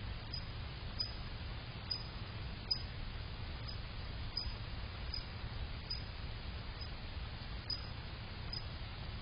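Steady low hum and hiss of a night-vision security camera's microphone, with faint ticks about once a second.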